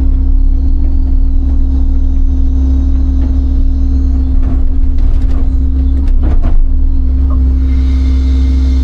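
Large excavator's diesel engine running steadily with a deep hum, with a few short knocks and clanks about halfway through.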